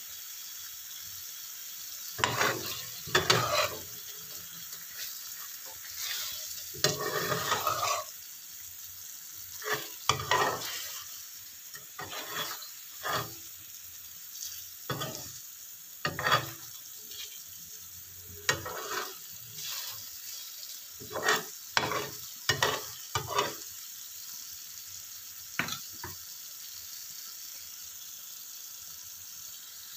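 A spatula stirring and scraping chicken feet and eggs through thick sauce in a wok, in many short, irregular strokes, over a steady sizzle from the sauce simmering on low heat. The stirring stops a few seconds before the end, leaving only the sizzle.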